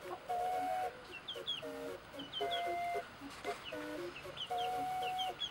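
Domestic hens clucking and calling. Long drawn-out calls alternate with short lower clucks, with repeated pairs of brief high chirps throughout.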